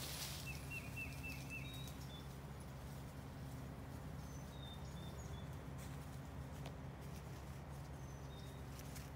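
Small birds calling: a quick run of about five short chirps just after the start, then a few thin high whistles later on, over a steady low hum.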